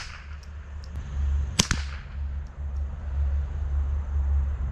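A Remington 597 semi-automatic .22 LR rifle fires one sharp shot about a second and a half in, loaded with Winchester M22 45-grain subsonic ammunition that cycles the action. A few faint ticks follow.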